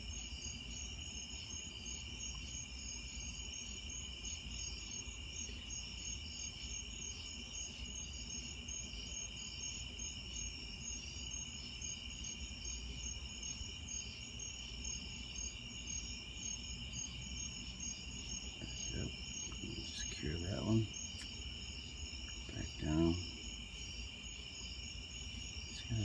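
Chorus of singing insects: a steady high trill with a pulsing, higher chirp above it. Two brief low murmurs from a person's voice break in a few seconds apart late on.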